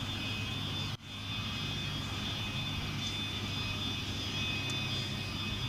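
Distant Antonov An-148 jet airliner on the runway, its turbofan engines running with a steady high whine over a low rumble. The sound drops out for an instant about a second in.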